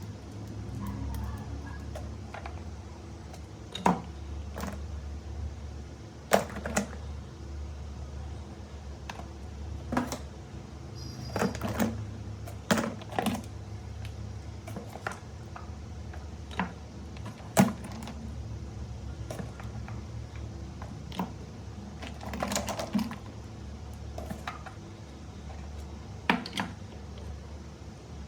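Scattered sharp clicks and light knocks, irregular and about one every second or two, over a steady low hum.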